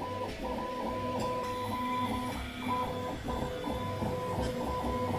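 A CoreXY 3D printer printing at 200 mm/s: its stepper motors whine in steady tones that break off and resume every fraction of a second as the print head changes direction. The extruder keeps feeding at this speed with no skipping.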